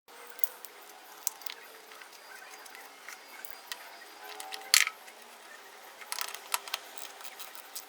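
Scattered light metal clicks and taps of a wrench and the carburetor float bowl as the bowl is fitted and its main-jet bolt is tightened, with one sharper click about halfway through and a quick run of clicks a little later.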